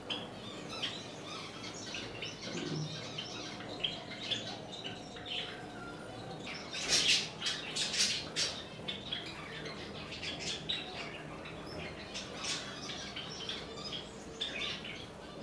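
Caged Java sparrows calling with many short, high chirps, rising to a louder flurry of sharp sounds about seven to eight seconds in.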